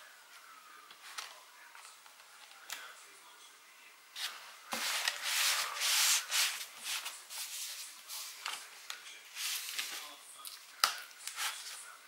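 Plastic pry tool scraping and rubbing along the edge of a Lenovo ThinkPad T495s screen bezel as it is worked between bezel and panel. Faint scratches at first, then a dense run of scraping from about four seconds in, with one sharp click near the end.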